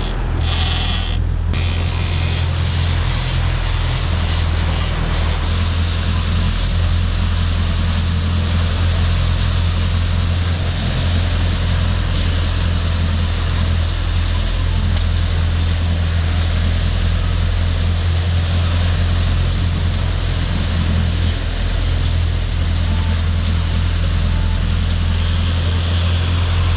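Boat engine running steadily under way while trolling, a constant low drone under the rush of wake and wind.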